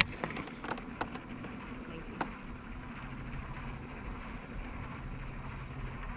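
Baitcasting reel with its handle being turned, making irregular clanky clicks and knocks, one louder clunk about two seconds in. A reel in need of cleaning.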